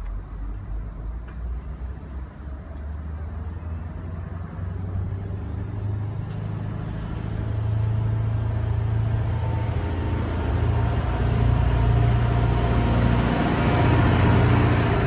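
Arriva Spurt Stadler GTW diesel multiple unit pulling away from the platform. Its engine hum grows louder as the train gathers speed and draws level, loudest near the end.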